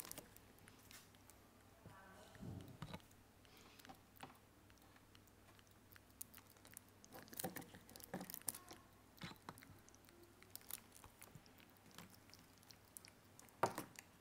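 Faint scattered clicks, taps and crinkles of a baby monkey handling and biting paperboard milk cartons on a wooden table, with one sharper knock near the end.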